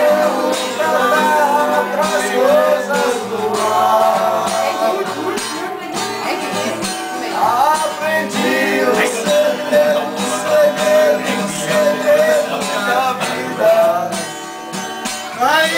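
Several men singing a Portuguese-language song together to an acoustic guitar, in a casual, loose group singalong.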